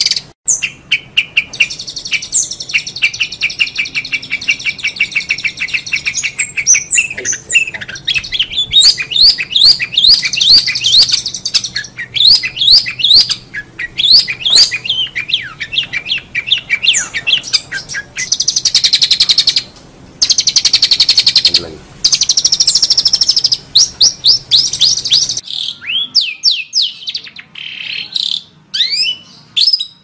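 Long-tailed shrike (cendet) singing loudly and continuously: first a fast chattering trill, then a long run of quick rising whistled notes, then dense buzzy trills. In the last few seconds the song breaks into scattered single rising notes with short pauses.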